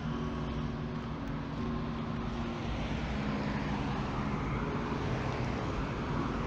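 Road traffic on a multi-lane highway: cars driving past in a steady stream of tyre and engine noise, growing a little louder in the second half as cars pass close by.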